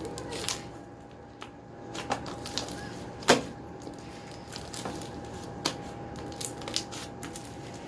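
Slime being kneaded and squeezed by hand, giving scattered small clicks and pops, with one sharper pop about three seconds in.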